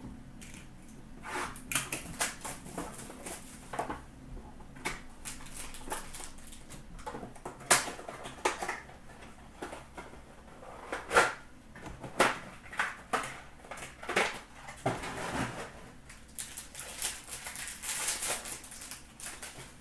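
Hands handling hockey trading cards and foil pack wrappers: irregular clicks, flicks and rustling crinkles, thicker in the second half.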